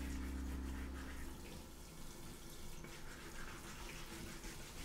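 Kitchen tap running onto a wooden board as it is scrubbed with a brush in a steel sink. Background music fades out about a second in.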